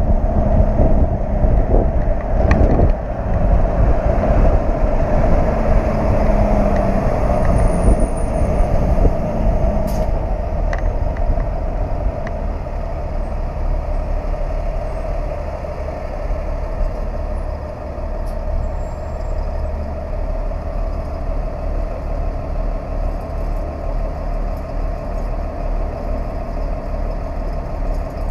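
Flatbed tow truck driving at highway speed, heard from the motorcycle strapped on its bed: a steady rumble of engine, tyres and wind. A low hum sounds over the first ten seconds or so and then fades out.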